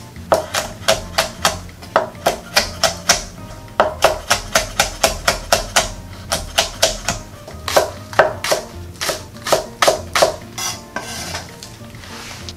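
Chef's knife chopping chili peppers on a wooden cutting board: a steady run of sharp knocks, about three a second, with a short break about four seconds in. A softer, noisier sound comes near the end.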